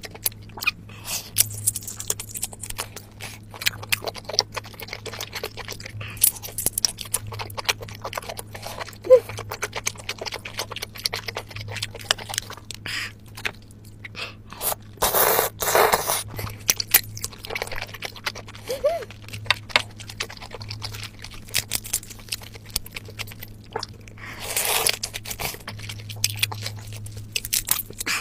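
Close-miked eating of spicy seafood boil: crab shell cracking and crunching, and chewing of sauce-coated crab and octopus. Many sharp crunches in quick succession, with longer, louder crunching bursts about halfway and near the end.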